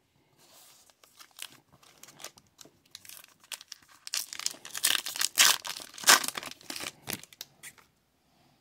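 Foil wrapper of an Upper Deck hockey card pack crinkling as it is handled, then tearing open with loud crinkling about four seconds in. The noise dies away about a second before the end.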